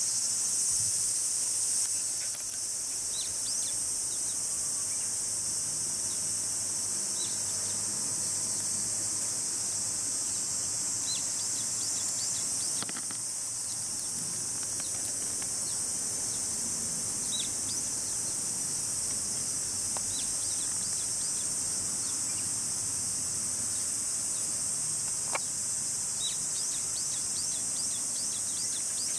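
Steady high-pitched chorus of insects, with short bird chirps scattered throughout.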